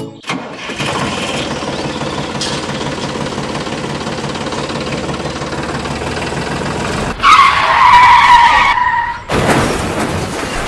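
Small motor of a mini tractor model running steadily under load. About seven seconds in comes a louder whine that falls in pitch for about two seconds, followed by a short rush of noise.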